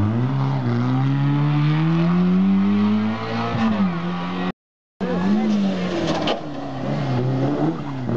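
A Peugeot 106 rally car's engine accelerating hard out of a hairpin, its pitch climbing steadily and dropping at a gear change about three and a half seconds in. After a half-second break in the sound, a Fiat Seicento rally car's engine comes in, its pitch dipping as it slows for the hairpin and then rising again as it pulls through.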